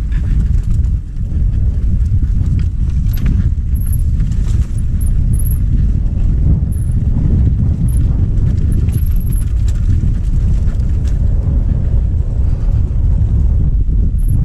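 Mountain bike descending a rough dirt trail at speed: heavy wind rumble on the bike-mounted camera's microphone, with the rattle and knocks of the bike jolting over bumps.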